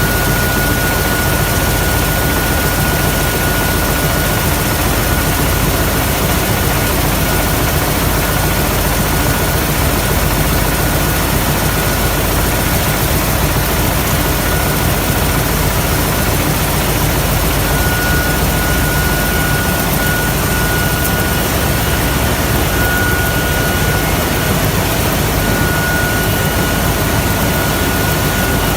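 Wire nail making machine running: a loud, steady, rapid mechanical clatter with a thin high whine that comes and goes.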